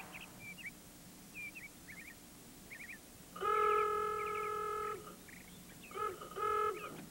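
Vehicle horn honking: one long blast about three and a half seconds in, then two short honks around six seconds. Faint bird chirps come and go before the horn.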